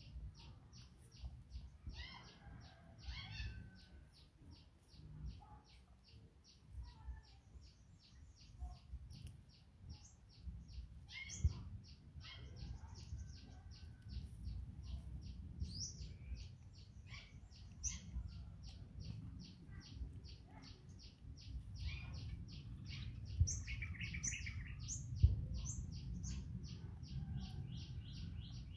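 Birds chirping outdoors: one keeps up an even run of short high chirps, about three or four a second, while other calls come and go, over a low background rumble.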